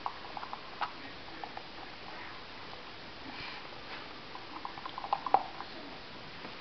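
Two Jack Russell terriers mouthing and nosing a toy ball: a scatter of short soft clicks and taps, with a quick flurry of them about five seconds in.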